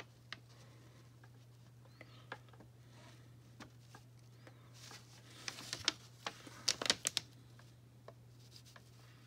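Small clicks and rustling of hands handling a fashion doll, her hair and a little plastic crochet hook with a bead, close to the microphone, with a quick flurry of clicks about six to seven seconds in. A low steady hum runs underneath.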